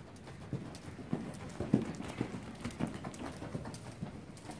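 A horse's hooves striking soft arena dirt as it lopes under a rider: dull hoofbeats in an even rhythm, a little under two a second.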